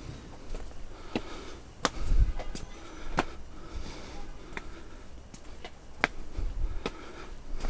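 Footsteps of a hiker climbing a mountain trail, a sharp step or tap every second or so, with the climber's heavy breathing between them.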